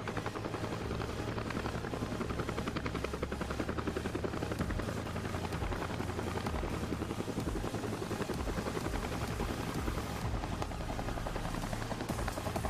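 Helicopter rotor chop, the blades beating in a rapid, steady rhythm with a low steady hum underneath.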